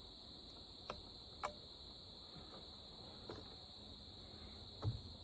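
Steady, faint chorus of crickets, a high continuous trilling. A few faint clicks and a soft knock near the end cut through it.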